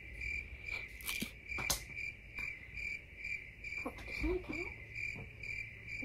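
High-pitched chirping that pulses evenly, nearly three times a second, with two sharp clicks a little over a second in.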